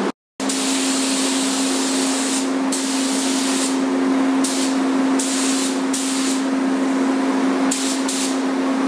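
Paint spray gun hissing as it sprays metal trim molding, the high hiss swelling and easing several times as the trigger is worked, over a steady low hum. A brief silent gap comes just after the start.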